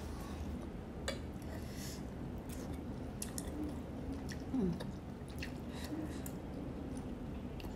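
Close-up chewing and wet mouth sounds of a person eating beef and rice noodles, with scattered small clicks. About halfway through there is a brief falling hum from the eater's voice, the loudest moment.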